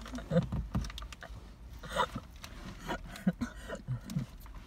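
Faint scattered small clicks and rustles of handling, with a few short, soft low sounds in between.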